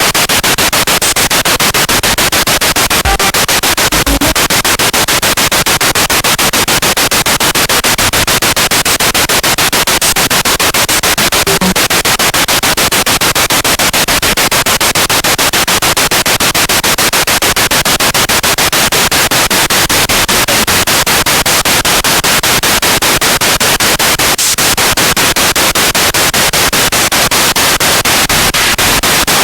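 Spirit box radio sweeping through stations: loud static hiss chopped into an even, rapid stutter many times a second as it jumps from frequency to frequency.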